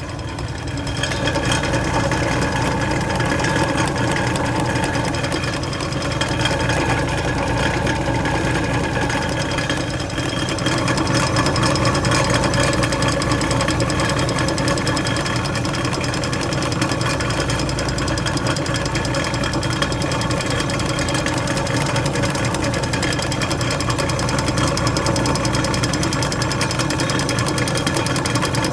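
Norge Rollator refrigerator's belt-driven rotary compressor and motor running steadily, with a hum and a rapid, even knocking. The owner puts much of the noise down to the unit sitting without its suspension springs.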